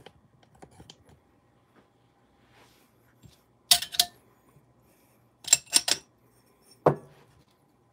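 Metal clinks of an espresso portafilter and dosing funnel being handled in a wooden stand: two sharp clinks a little under four seconds in, then three quick clicks. Near the end comes a duller knock as the grinder's dosing cup is set onto the portafilter.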